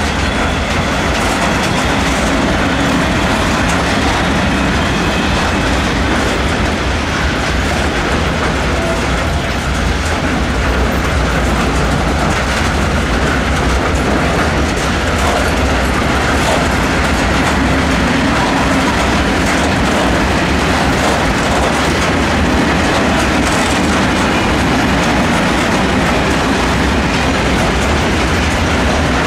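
A long freight train of tank wagons rolling past, its steel wheels clattering steadily on the rails.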